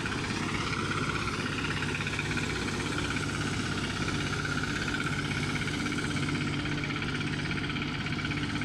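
Engine of heavy road-construction machinery running steadily, with a low hum and a higher wavering whine over it.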